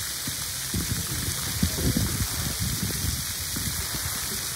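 Splash pad fountain jets spraying and pattering onto wet concrete: a steady hiss, with irregular low rumbles underneath.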